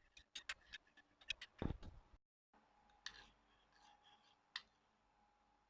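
A spoon stirring honey and ginger juice in a small dish, making a quick run of light clicks and taps against the dish, then only a few scattered clicks after a brief cut.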